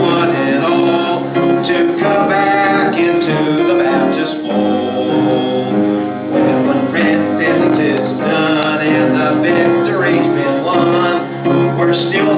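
Live band music: strummed guitar and piano playing the song, with a man's singing voice at times.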